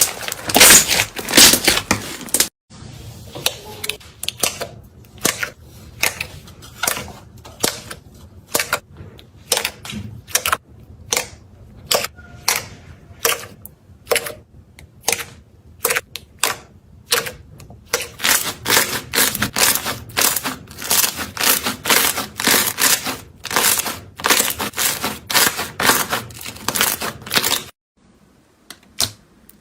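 Slime being squeezed and pressed by hand, giving a run of sharp, crisp clicks and pops. The sound stops briefly about two and a half seconds in and again near the end.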